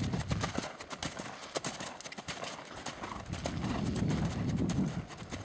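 Hoofbeats of a ridden pinto horse moving at a brisk pace over a dirt and sand arena: a steady run of dull thuds. A low rumble swells about four seconds in.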